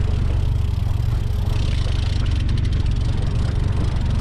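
Small outboard motor running steadily at trolling speed, with a low rumble of wind on the microphone.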